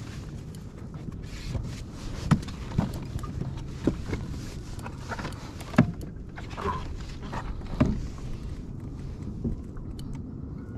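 Water sloshing against a plastic fishing kayak's hull with wind on the microphone, broken by about five sharp knocks and thumps, the loudest two about two and six seconds in.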